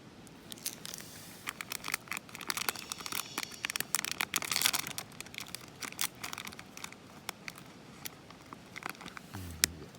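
Plastic snack wrapper being torn open and crinkled by hand to get at a packaged doughnut: a run of irregular crackles, busiest around the middle.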